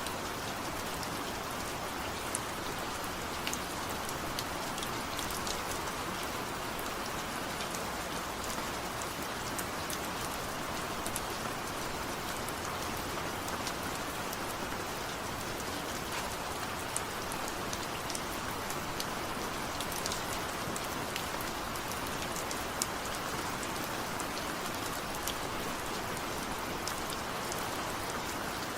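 Steady rain falling, with scattered individual drops ticking sharply over the even hiss.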